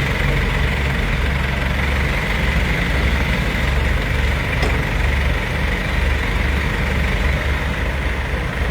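Heavy diesel engine idling steadily, a constant low rumble.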